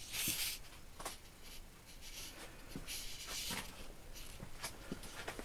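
Faint scraping and rustling with scattered light clicks, loudest in two short spells: at the start and again about three seconds in.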